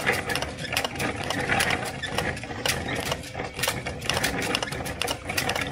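3D printer filament being hand-cranked off a loose spool with no holder, through a counter and onto a take-up spool: a quick, uneven clatter of clicks and rattles. The unmounted supply spool is what makes it so noisy.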